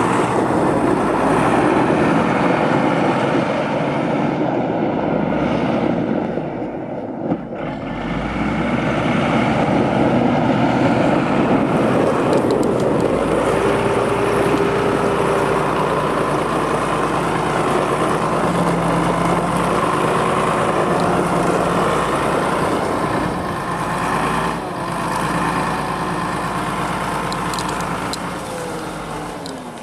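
Volvo BM LM 840 wheel loader's diesel engine running steadily under load while the machine carries and lifts a full bucket of snow, its pitch shifting up and down as it works.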